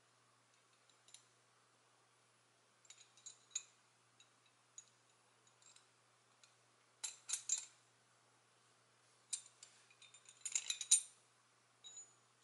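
The silver and gold pieces of a Hanayama Seahorse cast-metal puzzle clicking and clinking against each other as they are twisted and slid through one another. Scattered single clicks, with quick clusters about seven seconds in and again near the end, the loudest just before the end.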